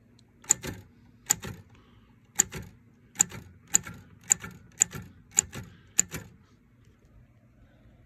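Olympia B12 manual portable typewriter keys struck one at a time: nine sharp clacks, each followed by a softer click, about one a second at first and then a little quicker.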